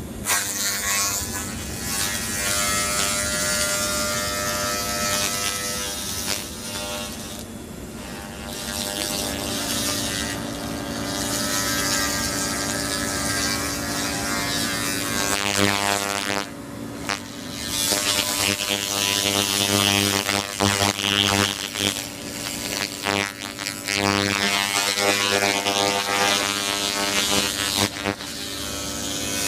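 Handheld laser rust-removal gun at work on a rusty metal grate: a steady buzzing hum with a dense, crackling hiss from the laser striking the rust. The hum's pitch pattern shifts a couple of times, and the sound breaks off briefly about three times.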